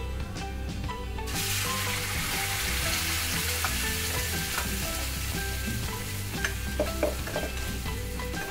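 Wet ground masala paste hitting hot oil in a pan: a sudden loud sizzle starting about a second in, then slowly dying down as it is stirred, with a few clinks of a steel spoon on the pan near the end.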